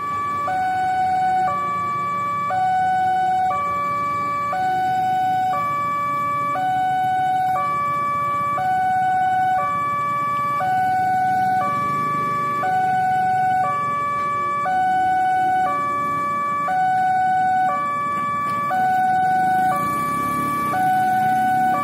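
Railway level-crossing warning alarm sounding steadily, switching between a higher and a lower pair of electronic tones about once a second. It signals that a train is approaching and the crossing is closed.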